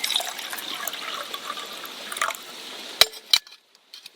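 Water poured into a cup for about three seconds, then two sharp knocks about a third of a second apart.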